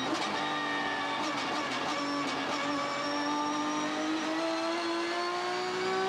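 Race car engine heard onboard, accelerating hard in a single gear, its note rising steadily throughout.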